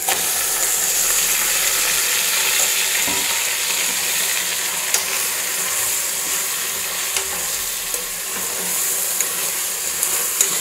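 Marinated mutton sizzling steadily in hot oil and fried onions in a pot as it is stirred in with a spoon, with a few light knocks of the spoon against the pot.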